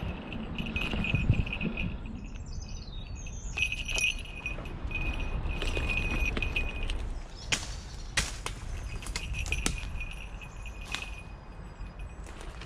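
Falconry bell on a Harris hawk's anklet jingling in short spells of a thin, high ringing. Several sharp clicks come in the second half.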